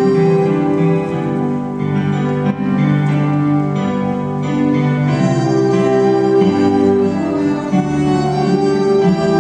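Live instrumental music from violins and an electric keyboard playing a slow melody together in held notes that change about once a second.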